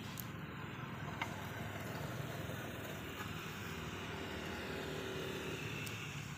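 A motor vehicle engine running steadily, a low even rumble throughout, with a single short click about a second in.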